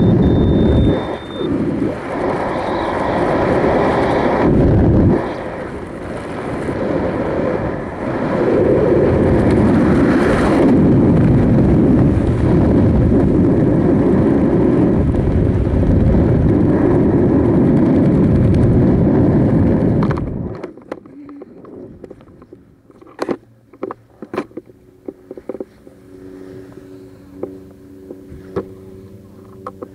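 Wind rushing over a helmet-mounted camera's microphone during parachute canopy flight, loud and steady, cutting off sharply about twenty seconds in at touchdown. After that it is much quieter, with scattered clicks and rustles of gear and a faint steady hum.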